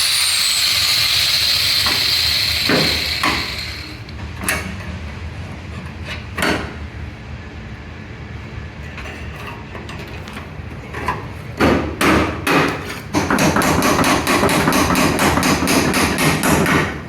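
Bodywork on an old pickup's sheet metal. For the first four seconds a tool runs with a loud steady whir, followed by scattered single knocks. From about thirteen seconds in comes a rapid, even hammering of many blows a second.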